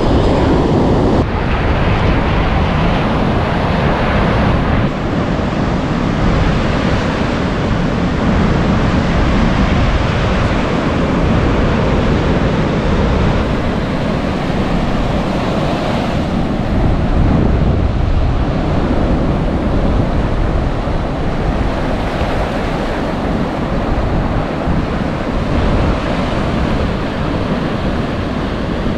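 Ocean surf washing steadily against the shore, with wind noise on the microphone.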